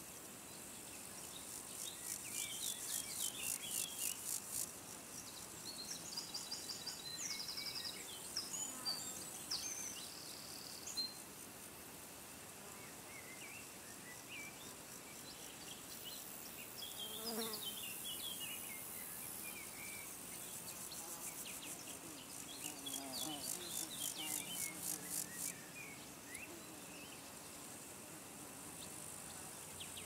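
Nature ambience of insects. A high, rapidly pulsed insect trill comes in two bursts of a few seconds, one soon after the start and one past the middle. A buzzing insect passes briefly about halfway through, and faint bird chirps are scattered throughout.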